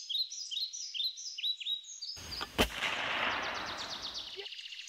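Birds singing repeated downward-sliding chirps, about two a second. A little past halfway a rush of noise builds to a sudden loud bang that dies away over about two seconds, while fast high trills carry on.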